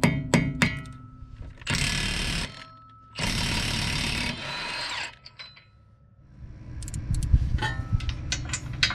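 Two bursts of a power tool, the first about a second long and the second about two seconds, with a few sharp clicks before them and light metallic clinks near the end.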